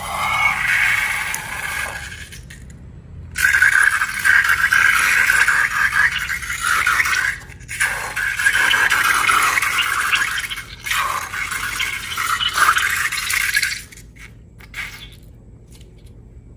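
Scraping and rubbing in four long stretches of a few seconds each, then a few sharp clicks near the end.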